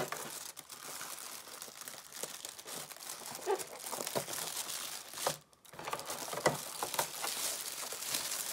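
Thin clear plastic bag crinkling and rustling as hands work it, pulling a wrapped figure out of a plastic packaging tray. There is a short pause a little over five seconds in.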